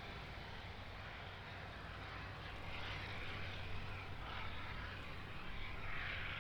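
Jet airliner engines heard at a distance: a steady low hum under a rushing noise that swells twice.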